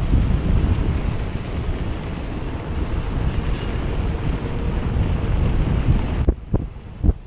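Wind rushing and buffeting over the microphone on a moving ride, a steady rumble that drops off sharply about six seconds in, followed by a few short knocks.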